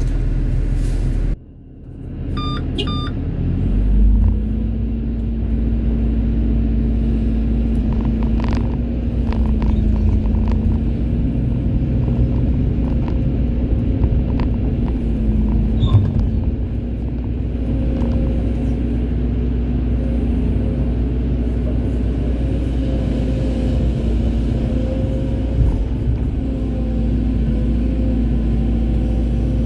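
Hydraulic excavator's diesel engine running steadily under load, with a couple of short beeps about two to three seconds in and a few scattered knocks.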